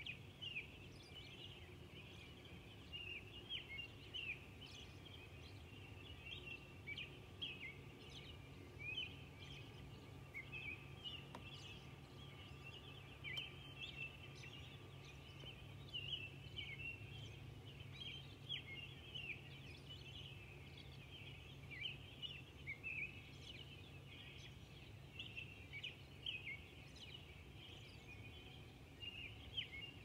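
Faint dawn chorus of songbirds, robins among them: many short chirps and sliding notes overlap without a break, over a steady low hum.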